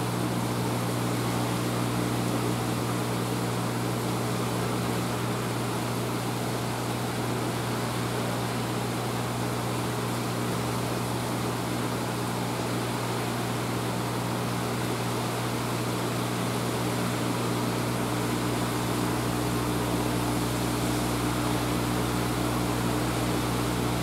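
Steady electric hum of aquarium pump equipment: a constant low drone with a few steady tones over a hiss of running water and air. A deeper rumble joins about seventeen seconds in.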